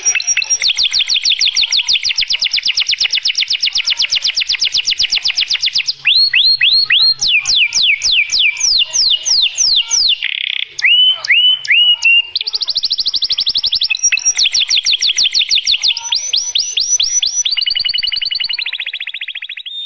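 Domestic canary singing: long, very fast trills, broken in the middle by a run of falling whistled notes at about four a second and a few short slurred notes, then fast trills again.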